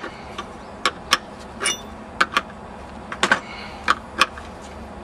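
A 5/8 wrench clicking and clinking against the metal fittings of the golf ball cannon's trigger valve as the fitting is tightened: a dozen or so irregular sharp metallic clicks, some with a brief high ring.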